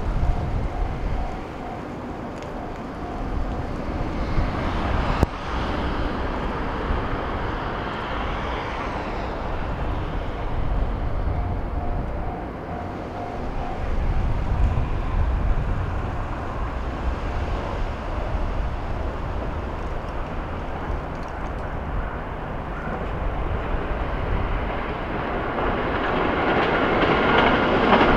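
DD51 diesel-hydraulic locomotive's engines running as it hauls oil tank wagons slowly toward the listener, the rumble growing louder near the end as it comes close. A level-crossing warning bell dings repeatedly at the start and again about halfway through.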